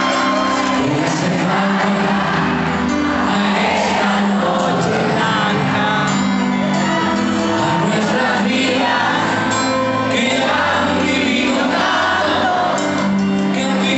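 Live concert music heard from the audience in a large arena: a male singer sings into a microphone over a band with backing singers, and the crowd shouts and whoops.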